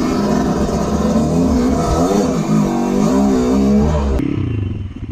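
Dirt bike engine revving up and down as the bike is ridden along a rough track. About four seconds in the sound cuts off suddenly and a quieter engine idles with an even pulse.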